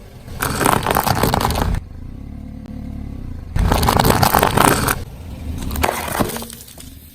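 A car's tyre rolling over and crushing objects, with two loud crackling, scraping crunches a couple of seconds apart and the car's engine running low between them.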